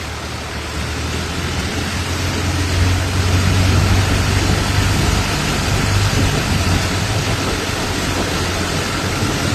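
Motorboat engine running steadily with a low hum, swelling slightly a few seconds in, over a constant hiss.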